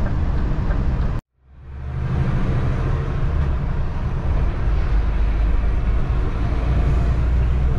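Truck engine and road noise heard from inside the cab, a steady low rumble. It cuts out completely a little over a second in and fades back in within about half a second.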